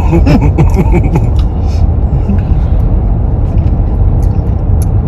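Steady low road noise inside the cabin of a moving car, with a voice briefly in the first second.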